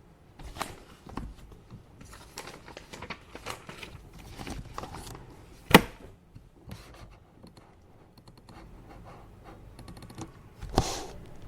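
Paper being handled on a desk: irregular rustling, sliding and scraping of sheets, with one sharp tap a little past halfway and a louder rustle near the end.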